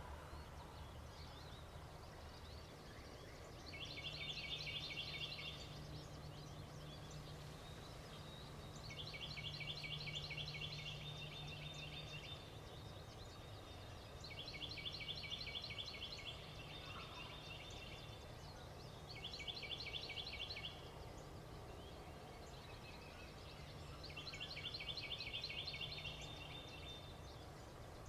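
A small songbird singing a fast, even, high-pitched trill, repeated five times about every five seconds, over a faint steady low hum.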